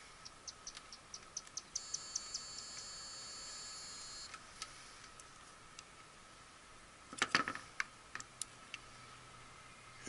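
Clamp meter being set up and used to check fuses: a quick run of ticks as its rotary dial is turned, then a steady electronic beep of about two and a half seconds, typical of a continuity test with the leads touched together. About seven seconds in, test probes click sharply against the metal ends of the cartridge fuses in a pullout fuse block with no beep: both fuses are blown.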